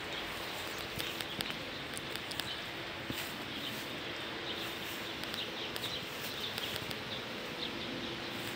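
Outdoor ambience: a steady low hum with faint high bird chirps repeating throughout, and a few sharp clicks of the phone being handled.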